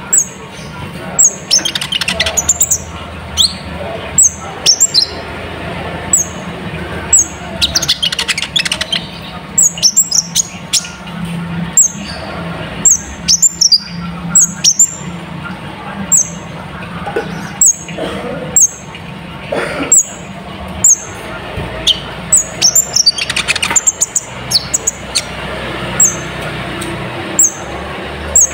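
Kolibri ninja (a sunbird) singing a loud, busy lure song: a run of thin, high notes, each a quick downward sweep, repeated about once or twice a second. Louder bursts of chattering phrases break in every few seconds, the 'isian' fill-ins mixed into the song.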